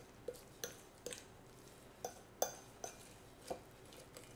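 A metal fork clinking and scraping against a casserole dish while stirring thick cream cheese with chopped green onions and cilantro. The clinks come as a string of about eight short taps at uneven spacing, roughly two a second.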